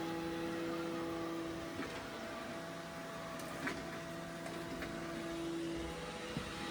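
Robot vacuum running: a steady motor hum with a few faint clicks. The hum's middle tone drops out about six seconds in.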